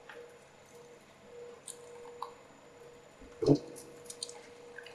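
Small clicks and taps from working a soldering iron and solder wick over a circuit board, with one louder knock about three and a half seconds in, over a faint steady hum.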